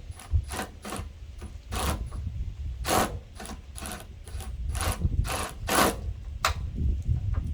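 About a dozen sharp metallic clicks at uneven intervals of roughly half a second, from hands and tools working the tailgate assist mechanism on a pickup tailgate, over a low rumble.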